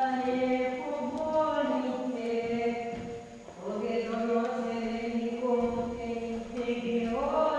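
Slow vocal chant: voices hold long, steady notes that change pitch every second or two, with a short break about three seconds in.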